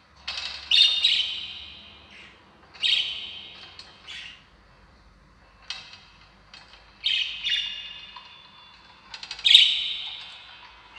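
Bird calls: harsh, high chirping calls that come in about six separate bursts a second or two apart. The loudest bursts come about a second in and near the end.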